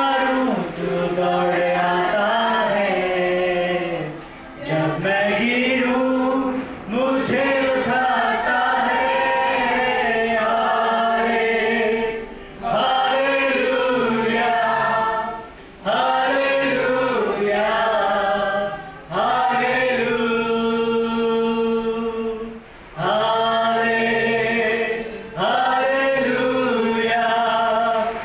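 A congregation singing a worship song without instruments, led by a man singing into a microphone. The song moves in phrases of three or four seconds, with long held notes and short breaks between phrases.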